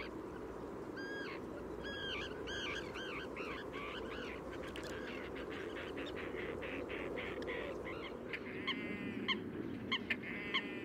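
Waterbirds calling over a steady low background hiss. A series of short, arched honking calls comes first, then a fast run of clicking notes, and two trilled calls near the end.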